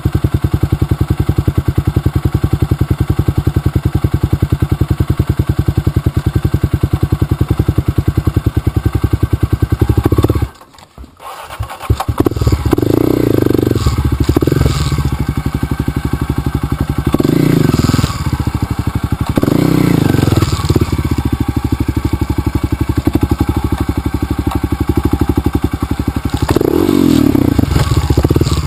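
Motorcycle engine running on a dirt trail ride, its firing pulses steady, then rising and falling with throttle in several swells. The sound drops out sharply for about a second and a half about ten seconds in, then the engine carries on.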